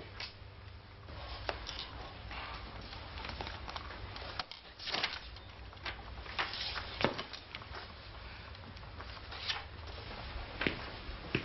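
Paper sheets rustling and light scattered knocks and shuffles from students at their desks, over a low steady hum.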